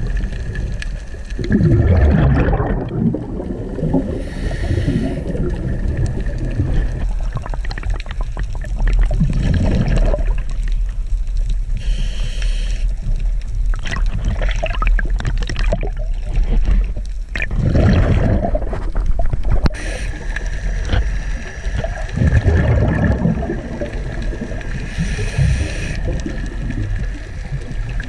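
Water sloshing and gurgling around a GoPro camera, heard as muffled low swells that rise and fall every few seconds. A faint steady high tone comes and goes.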